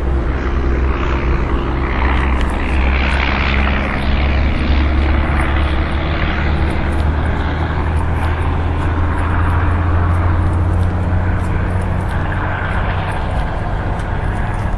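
Skateboard wheels rolling over smooth concrete: a loud, steady, deep rumble with a faint hum that shifts in pitch as the speed changes.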